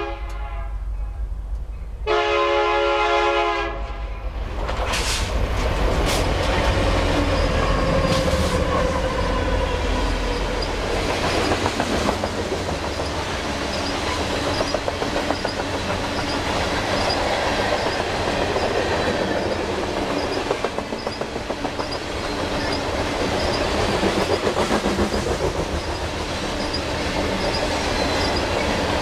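A diesel locomotive air horn sounds a brief note and then a longer blast about two seconds in as a loaded coal train approaches, followed by the heavy rumble of the diesel locomotives passing. Loaded coal hopper cars then roll by with a steady rumble and rhythmic wheel clatter over the rail joints.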